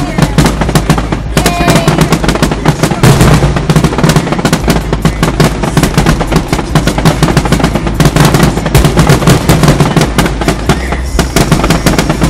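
Fireworks going off in a rapid, continuous barrage of bangs and crackles, with a steady low rumble underneath. The quick reports are often likened to an assault rifle or a 9mm.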